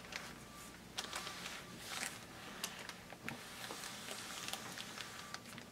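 Faint rustling with a few light ticks: a household iron being slid over a sheet of silicone release paper while pressing fusible appliqué.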